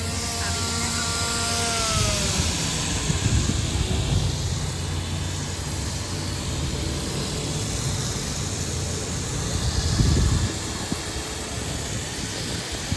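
Agricultural spraying drone's spraying system running on test: impeller pumps and centrifugal spray nozzle motors spinning with a steady whir and spray hiss. A tone at the start glides slowly down in pitch over the first few seconds.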